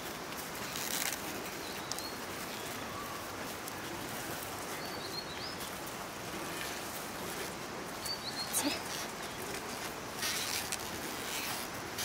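Steady outdoor hiss with insect buzzing, a few short high bird chirps, and soft crunching scrapes of an ox-drawn wooden plough through dry soil, most noticeable about two-thirds in and near the end.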